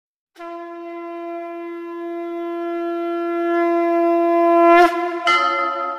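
A conch shell (shankha) blown in one long note that swells louder for about four and a half seconds, then wavers and breaks off. Soon after, near the end, a temple bell is struck once and rings on.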